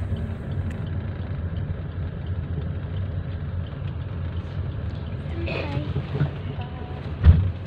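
Steady low rumble of a car's engine and tyres heard inside the cabin as it drives slowly in traffic, with one sharp thump near the end.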